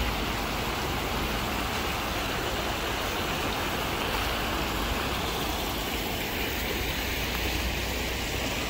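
Steady rushing of running water, an even, unbroken noise that cuts off abruptly near the end.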